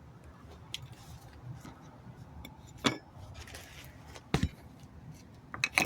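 Brake pads being handled, their metal backing plates clinking and knocking together a few times, with a quick cluster of knocks near the end.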